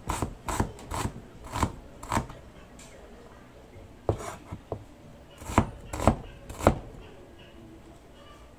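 Meat cleaver chopping pork, garlic and onion on a wooden cutting board, each stroke a sharp knock. The strokes come unevenly, pause for a moment a little under halfway, then stop about seven seconds in.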